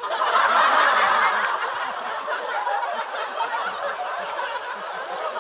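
Studio audience laughing at a punchline, starting suddenly, loudest in the first second or two, then slowly dying down.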